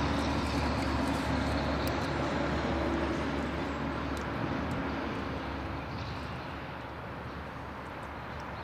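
Distant engine drone, steady at first, then slowly fading over the last few seconds.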